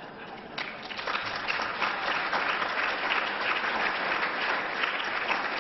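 Audience applauding. The clapping swells up about half a second in and holds steady.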